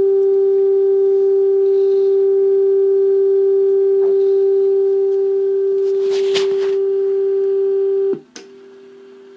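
Steady test tone from the signal generator's modulation, coming through the valve radio's speaker as the IF stages are aligned. There is a brief scratchy rustle of adjustment about six seconds in. Just after eight seconds a click comes and the tone suddenly drops much quieter, as the generator's output is turned down.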